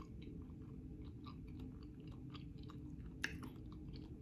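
Close-up mouth sounds of a person chewing a mouthful of broccoli and yellow rice: soft, faint wet ticks several times a second, with one sharper click about three seconds in, over a low steady hum.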